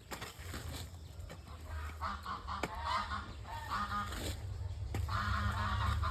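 Domestic fowl calling, likely geese: several short calls from about two seconds in, then a longer one near the end, over a low rumble.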